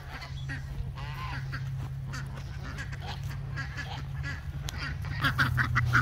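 Domestic geese honking and calling in scattered short calls as a flock begs for food.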